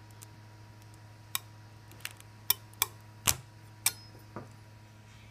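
Sharp clicks and knocks of hard 3D-printed plastic parts being handled, about seven in a few seconds, the loudest a little past the middle, over a steady low electrical hum.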